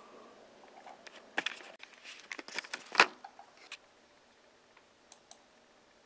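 Background music fading out, then a scatter of short clicks and knocks, the loudest about three seconds in, with a faint room hush after them.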